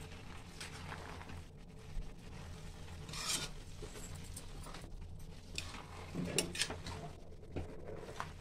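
A metal spoon stirring and scraping grated carrots around a steel pan, in irregular scrapes and knocks against the pan.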